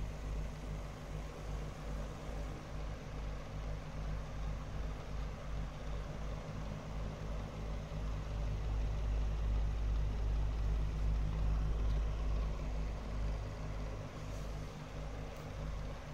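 An engine idling: a steady low rumble with a quick, even throb.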